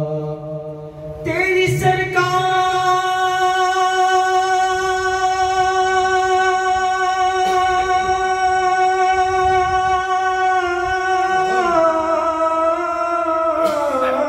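A man singing Urdu devotional verse (naat) into a microphone. About a second in he takes up one long high note and holds it steadily for about ten seconds, then his pitch steps down twice near the end.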